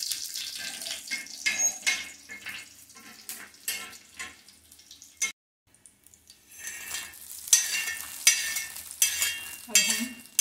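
Tadka of seeds and chillies sizzling and crackling in hot oil in a flat pan, stirred with a steel spoon. The sound drops out briefly about halfway; then the hot tempering crackles on as it is scraped out of the pan onto the chutney, the spoon scraping against metal.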